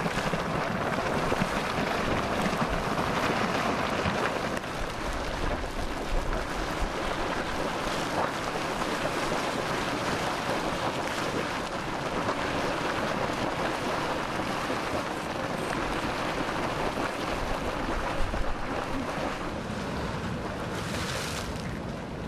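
Hot spring and geyser vents boiling and splashing water, a steady rushing sound, with some wind on the microphone.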